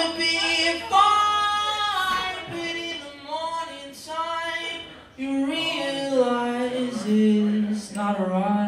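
A man singing live into a microphone in long, drawn-out notes that step down in pitch, ending on a low note held for nearly two seconds.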